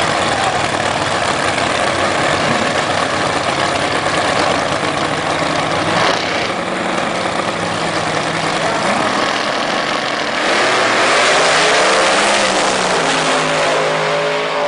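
Two doorslammer drag racers, a car and a pickup, running their engines loudly on the starting line. About ten seconds in, both launch at full throttle: the noise jumps up, then the engine pitch rises as they accelerate away down the track.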